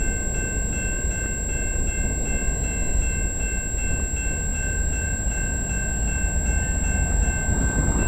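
Railway level-crossing warning bell ringing steadily over a low rumble from an approaching CN freight train, the rumble growing louder near the end.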